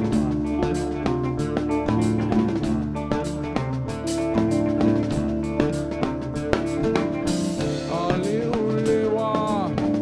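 Live band playing a steady drum-kit beat under electric guitar and oud.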